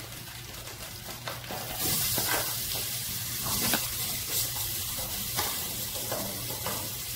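Crushed garlic sizzling in hot soybean oil in a metal pot, stirred with a spatula that scrapes against the pot. The sizzle grows louder about two seconds in.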